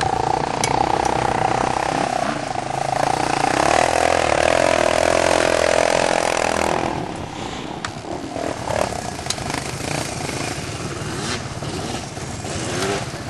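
Dirt bike engine running hard, its pitch dropping then holding steady. About seven seconds in it falls away to a quieter, rougher engine sound with a few faint clicks.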